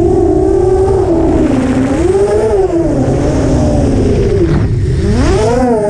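Onboard sound of an ImpulseRC Alien 6-inch FPV race quadcopter's brushless motors whining in flight, the pitch rising and falling constantly with the throttle, over a low rumble. The pitch climbs sharply about five seconds in, then drops back.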